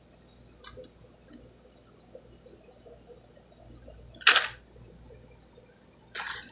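Handling noise from a plastic blister pack being turned over in the hand close to the microphone: one sharp rustle about four seconds in, and two shorter ones near the end.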